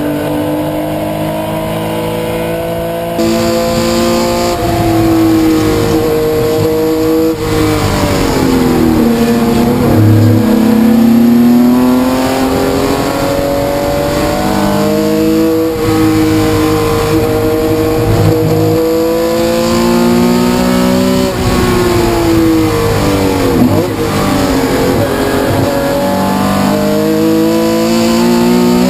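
In-car sound of a Porsche 911 RSR's air-cooled flat-six engine at racing speed, revving up through the gears and dropping in pitch under braking and downshifts several times, notably about 8 s, 21 s and 28 s in.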